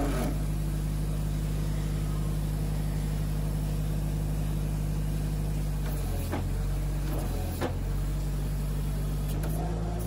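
Bulk feed truck's engine and feed-discharge machinery running with a steady mechanical hum, with two brief knocks about six and seven and a half seconds in.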